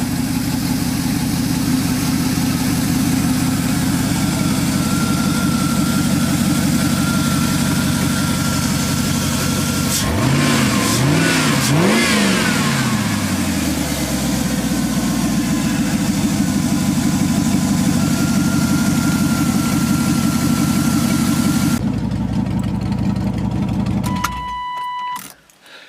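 5.3-litre LS V8 in a Pontiac Firebird idling steadily, blipped three times about ten seconds in, each rev rising and falling quickly. The engine is shut off near the end, followed by a short electronic beep.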